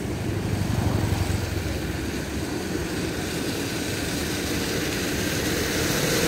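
Swollen, fast-flowing floodwater of a river rushing steadily: a continuous rumbling noise with no distinct events.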